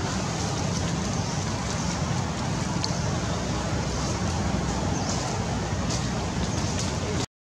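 Steady low rumble and hiss of outdoor background noise, which cuts out abruptly near the end.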